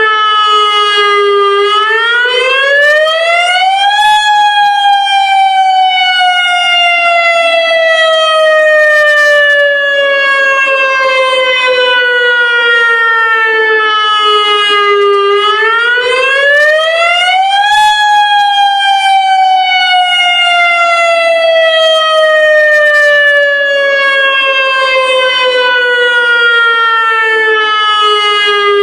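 Federal Signal Modulator lahar warning siren sounding a loud wail in its monthly test. The pitch climbs in about two seconds, then slides slowly down for about eleven. This happens twice, and a third climb starts right at the end.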